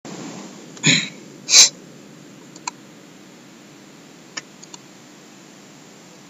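Two short, louder noises about a second in, then a few faint clicks over a steady background hiss.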